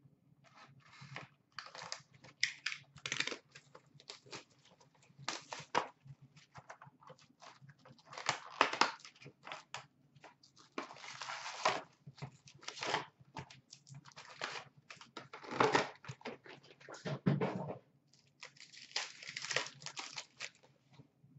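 Hobby box of 2016-17 Upper Deck SP Authentic hockey cards being torn open and its packs ripped, with wrappers crinkling and cards handled: a run of short, irregular tearing and rustling noises with brief quiet gaps.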